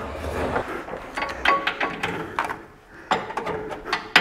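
Scattered metallic clinks and knocks of tools being handled as an impact wrench and its socket are fitted back onto a bolt under the car's front suspension.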